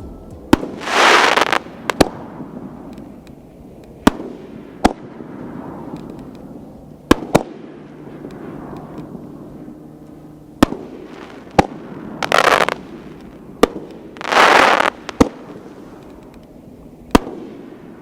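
Giant Panda 6-inch XXL canister shell fireworks firing and bursting: about a dozen sharp, loud booms at irregular intervals, with three longer hissing, crackling bursts, one near the start and two close together past the middle.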